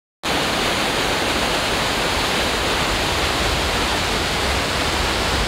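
Loud, steady rushing of a glacial meltwater waterfall cascading over rock. It cuts in suddenly just after the start.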